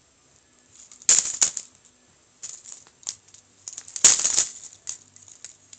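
Plastic K'nex rods and connectors clattering as objects are dropped and thrown onto a K'nex toy car, in two loud rattling bursts about a second in and about four seconds in, with scattered smaller clicks between.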